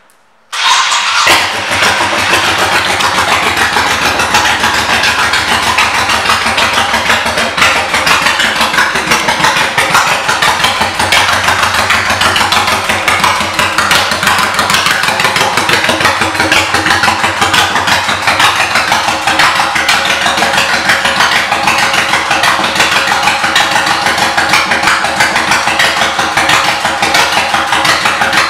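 2003 Honda Shadow Sabre's 1100 cc V-twin running through aftermarket exhaust pipes: it starts up about half a second in and then runs steadily at idle.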